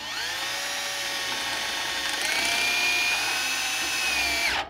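Cordless drill running a long 3/8-inch bit into an aluminium swing arm, drilling out a stripped chain-adjuster bolt hole for a thread-repair insert. The motor whine spins up at the start, steps higher in pitch about two seconds in, and cuts off near the end.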